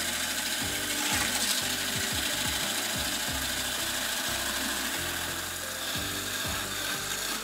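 Handheld electric whisk with a balloon-whisk attachment running steadily at speed in a stainless steel bowl, the wire whisk churning and scraping through cream. The cream is being whipped with sugar and is thickening toward stiff peaks.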